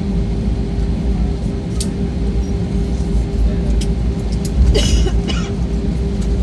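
Airliner cabin noise during taxi: a steady low rumble from the jet engines and the wheels rolling on the taxiway, with a constant hum. A brief rasping noise from inside the cabin comes about three-quarters of the way through.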